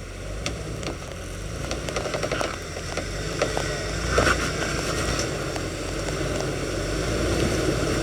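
Off-road Jeep engine running at low speed on a rock trail, growing gradually louder toward the end, with scattered clicks and knocks.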